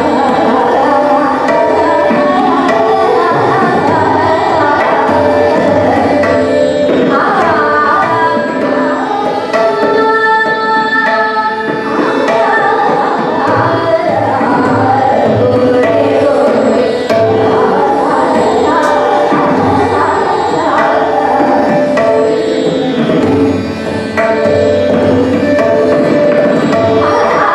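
Female Hindustani classical vocal singing a bandish, with gliding ornamented phrases and held notes, accompanied by tabla strokes.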